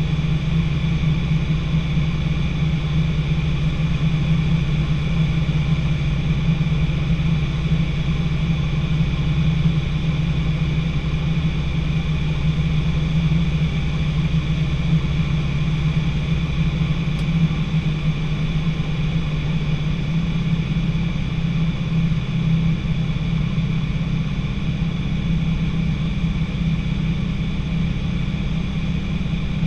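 Light training aircraft's piston engine and propeller droning steadily in flight, heard inside the cockpit; the deepest part of the rumble eases slightly past the middle.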